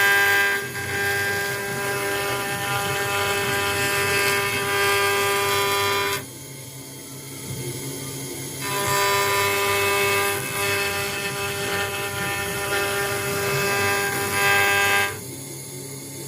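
CNC router spindle running with a steady whine while machining an acrylic sheet. It is louder for several seconds at a stretch and drops quieter twice, about six seconds in and near the end.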